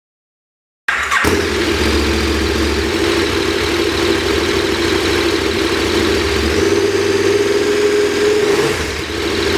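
KTM 1190 Adventure's V-twin engine running through a Barrett slip-on exhaust, cutting in abruptly after a second of silence and holding steady revs, with the note stepping up slightly about six seconds in.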